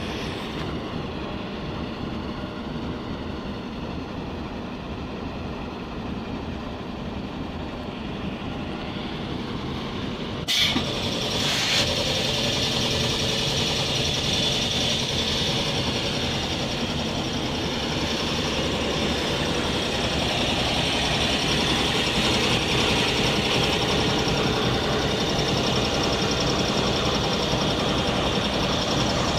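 Diesel locomotive engine running steadily at close range. There is a sharp knock about ten seconds in, after which the running grows louder, with a stronger high hiss on top.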